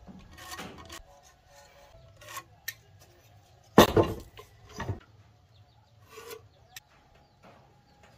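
A steel carpenter's square and a timber beam being handled while marking out a joint: metal and wood scraping and knocking, with the loudest scrape-and-knock about four seconds in as the beam is shifted.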